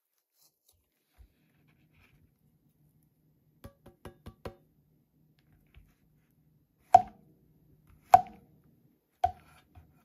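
Kitchen knife slicing through a firm king bolete (porcini) and striking the cutting board. A quick run of light clicks comes first, then three loud sharp knocks about a second apart near the end.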